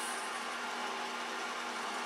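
Metal lathe running steadily while the tool cuts concentric rings into the face of an EDM electrode: a steady mechanical hum with a few low tones.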